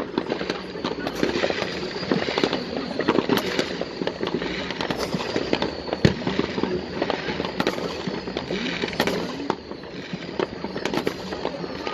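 Fireworks display going off: a continuous crackle with many sharp bangs, the loudest about six seconds in, and a few whistles falling in pitch.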